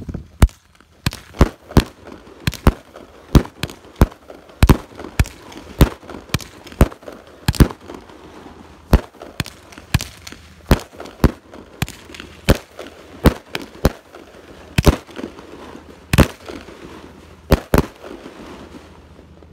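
Bunny Rabbit 200-gram consumer firework cake firing its shots in quick succession, a string of sharp bangs roughly two a second, falling silent shortly before the end.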